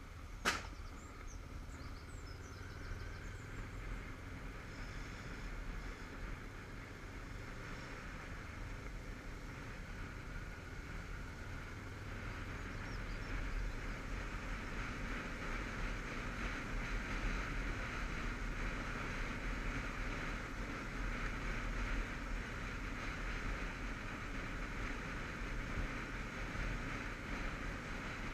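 Motorcycle riding along a lane: steady engine and wind noise on the on-board camera microphone, getting louder about halfway through. A sharp click about half a second in.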